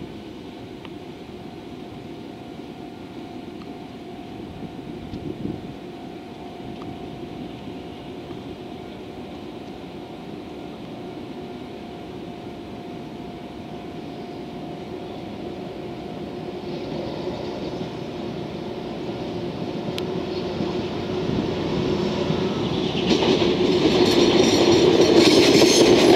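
JR Freight DE10 diesel-hydraulic locomotive hauling a freight train, approaching from a distance and passing close by: its diesel engine is faint at first and grows steadily louder over the last ten seconds, and rapid wheel clatter over the rail joints sets in a few seconds before the end as the locomotive reaches the microphone.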